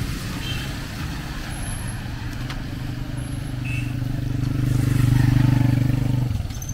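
A motor vehicle's engine running close by with a steady low hum, growing louder until about five seconds in and then cutting off suddenly about a second later, over street noise.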